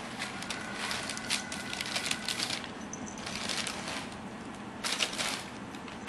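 Crumpled brown packing paper rustling and crinkling in irregular bursts as kittens scramble through and under it.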